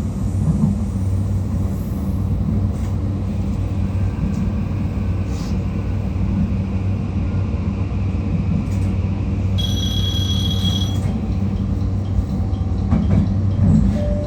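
JR Kyushu 821 series electric train running, heard from on board: a steady low rumble and hum of wheels and motors. About ten seconds in there is a brief high-pitched squeal of about a second and a half.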